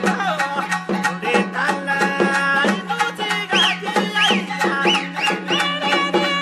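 Folk-style background music: plucked or sustained pitched notes with a regular beat over a steady low drone, with a few short high sliding notes about halfway through.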